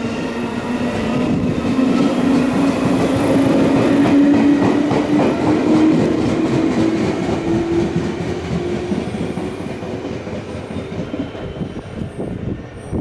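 JR West 221 series electric train pulling away and accelerating past, with a whine that rises steadily in pitch over the first eight seconds and wheels clicking over rail joints. It is loudest about four seconds in, then fades as the train draws away.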